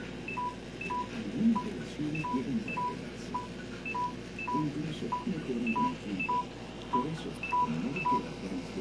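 An electronic device beeping: short, even beeps a little under twice a second, with a pair of higher-pitched beeps every second and a half or so, over low background noise.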